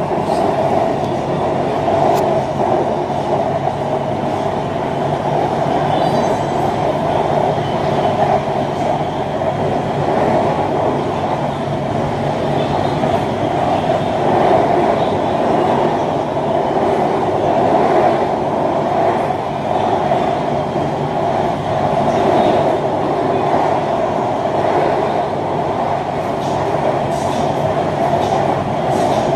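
BTS Skytrain car running along the elevated track, heard from inside the car: a steady rumble of the wheels and running gear.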